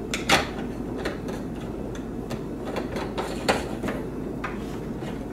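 Threaded PVC pipe fittings being twisted together by hand, giving a scatter of light plastic clicks and scrapes, unglued and without Teflon tape on the threads.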